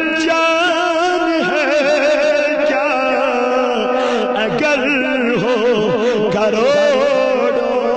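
A man singing a naat, an Urdu devotional song, drawing out long ornamented vowel notes that waver and bend in pitch with no distinct words.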